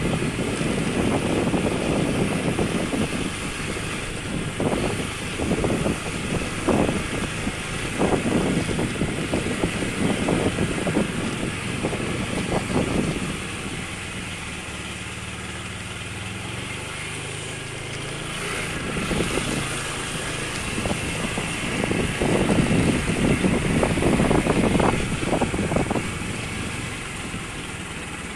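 Small motorcycle engine running under way, with a rushing noise that comes and goes, loudest for the first half and again near the end; in the middle the engine hum is quieter and steadier.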